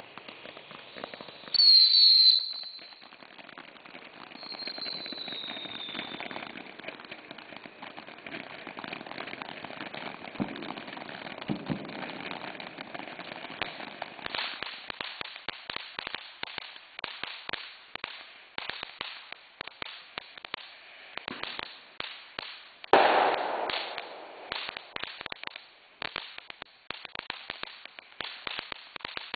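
Ground fountain fireworks spraying sparks: a loud high whistle about two seconds in and a second, falling whistle soon after, then a steady hiss that turns into dense crackling from about halfway. A single loud pop comes near the end.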